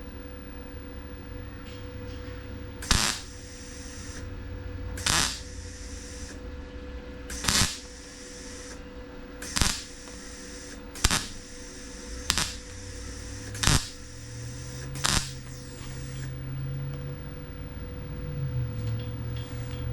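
MIG welder laying a run of eight short tack welds into thin car-body sheet steel, stitching in a patch panel. Each tack is a brief burst, about one to two seconds apart, over a steady hum.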